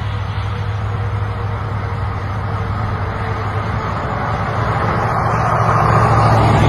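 Road traffic noise from a highway, steady, with a vehicle passing and swelling louder near the end.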